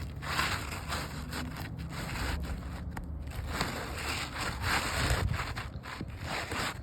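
Asphalt roof shingles scraping and rubbing against each other in a series of short strokes, as a new shingle is handled and slid into place.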